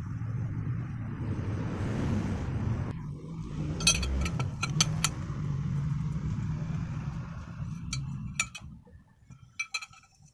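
Metal pipes with crimped ends clinking against each other as they are handled and laid down. A few sharp clinks come about four to five seconds in and again near the end, over a low engine rumble that fades out about eight and a half seconds in.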